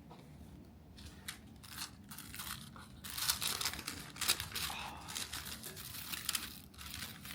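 Packaging of a box of chocolates being handled and opened: a few scattered rustles at first, then dense crinkling and tearing of wrapping from about three seconds in.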